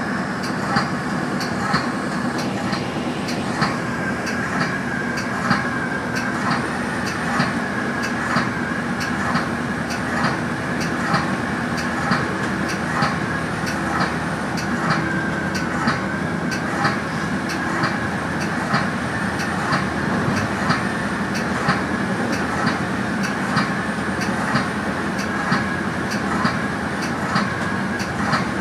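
Metra commuter train's wheels rolling over jointed rail, heard from inside the cab car: a steady rumble with a regular clickety-clack about once a second.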